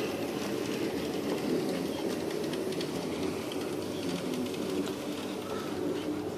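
N scale Kato model train running along the layout track: a steady whir with faint quick clicks of the small wheels over the rails.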